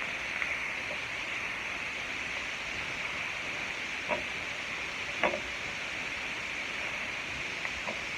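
Chopped onions and bell peppers sizzling steadily in butter in a pan, the start of a crawfish étouffée; a couple of light spoon clicks against the pan come about four and five seconds in.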